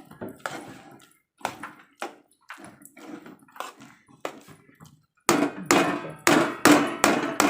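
Spoon knocking and scraping against a metal pot while stirring thick rice-flour dough, in a string of short strikes that grow louder and quicker about five seconds in.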